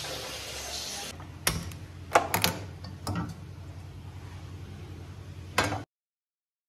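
Gas stove being lit: a few sharp clicks from the knob and ignition, then a metallic knock near the end as a steel pot is set on the burner grate.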